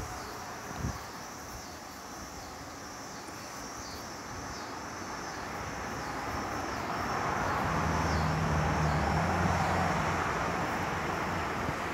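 A passing engine swells in from about six seconds in, peaks with a low hum around eight to ten seconds, then eases off.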